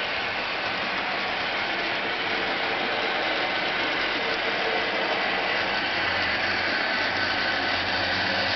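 N scale model passenger train, led by Precision Craft E7 diesel locomotives, running along the track with a steady mechanical hum; the low end grows a little fuller near the end as the train comes closer.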